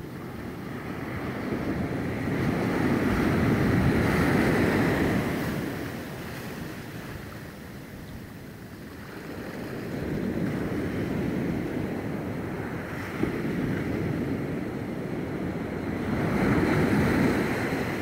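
Gentle sea waves washing around the concrete pilings under a pier. The wash swells and fades in three slow surges.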